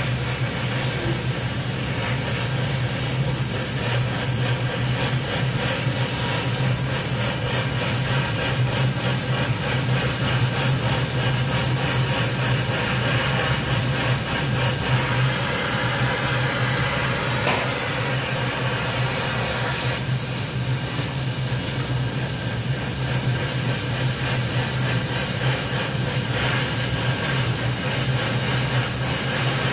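Oxy-fuel gas welding torch flame burning with a steady hiss while heating a steel pipe joint.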